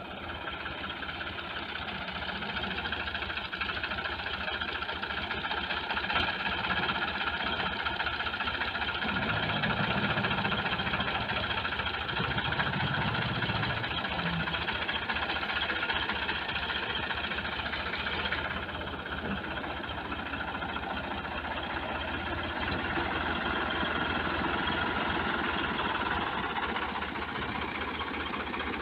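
Ford 4560 tractor's three-cylinder diesel engine running steadily under load as it pulls a loaded trolley over rough field ground. It gets louder for a few seconds about a third of the way in, then eases slightly.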